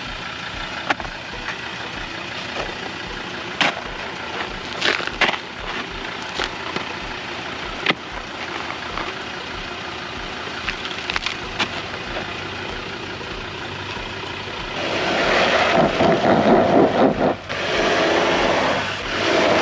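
A four-wheel drive's engine running as it tries to pull out of mud, with scattered sharp cracks and knocks. About fifteen seconds in it gets much louder twice, hard pushes that leave the vehicle seriously bogged.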